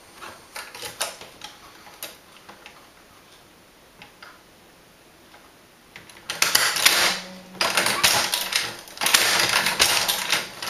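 Tippmann Boss hand-operated leather stitcher clattering as it is worked stitch by stitch through a leather holster. There are a few light clicks at first, then from about six seconds in, three loud spells of rattling clatter about a second each.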